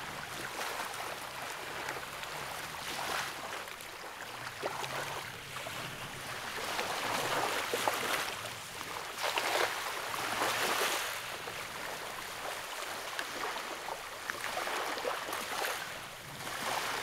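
Water splashing and sloshing in several swells, as a small cast net is thrown and hauled in through shallow creek water.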